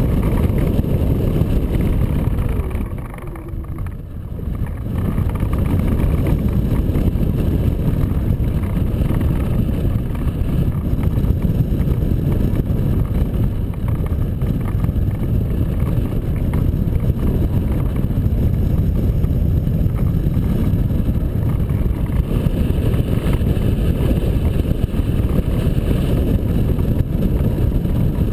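Airflow rushing over the microphone of a camera on a hang glider in flight: a steady low rumble of wind buffeting, which drops for a second or so about three seconds in.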